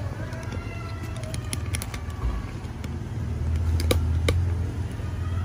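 Handling knocks and clicks from a phone camera being moved and fitted onto a tripod, over a steady low rumble of city traffic.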